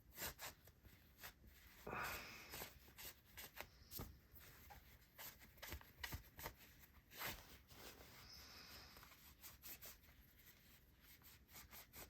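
Faint scattered clicks, taps and brief rubbing from handling a fidget spinner and its popped-out steel bearing while debris is cleaned out of it.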